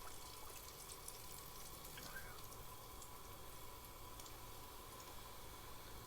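Battered fish strips frying in hot oil: a faint, steady sizzle with scattered small crackles.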